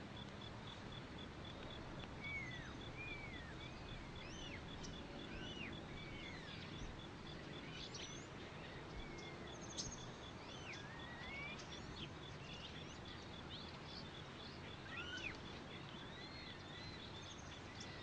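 Faint nature ambience: scattered bird chirps and short rising and falling calls over a low hiss, with a steady high-pitched pulsing note that stops briefly about halfway through.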